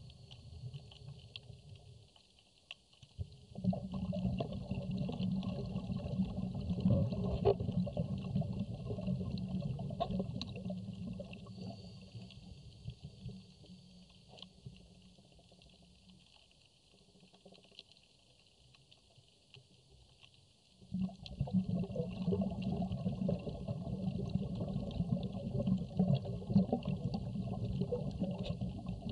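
Underwater noise recorded with reef footage: a low rumbling and bubbling comes in two long stretches with a quieter gap between them, over a faint steady crackle and hiss.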